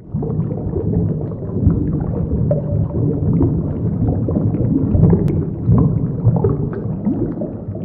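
Underwater ambience: a muffled, low gurgling rumble full of small bubbling clicks, fading out near the end.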